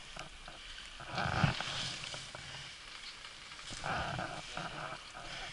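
Skis running through deep powder snow, heard on an action camera's microphone. There are two louder rushes of snow, about a second in and about four seconds in, over a steady hiss and scattered small knocks.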